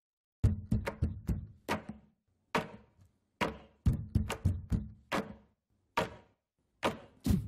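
An irregular run of sharp percussive knocks, some in quick clusters and others spaced apart, each dying away quickly.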